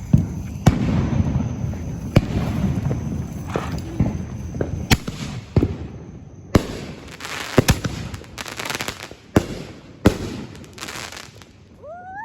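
Fireworks going off: a string of about ten sharp bangs, roughly one every second, with stretches of crackling in between.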